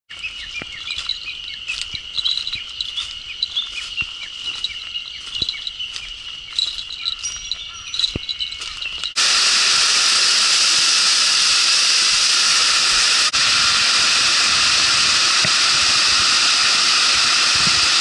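Birds chirping over a steady high insect drone for about nine seconds, then a sudden switch to the loud, steady rush of a waterfall pouring over a cave mouth, heard from inside the cave behind the falling water.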